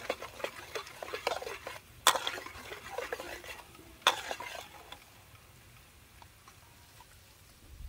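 Metal spatula scraping and stirring food frying in a steel wok, with two sharp clanks of the spatula on the pan, about two and four seconds in; the stirring stops a little past halfway.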